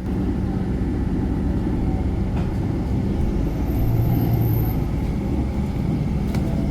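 Steady low rumble of passing vehicles, with a deeper hum that swells about four seconds in.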